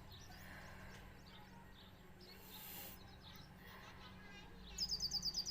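Birds chirping faintly in the background. Near the end one bird breaks into a loud, fast run of high chirps, about ten a second. A short soft hiss comes a little past halfway.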